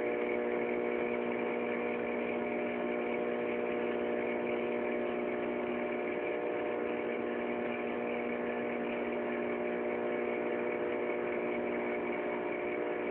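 Microwave oven running: a steady, even hum at one fixed pitch.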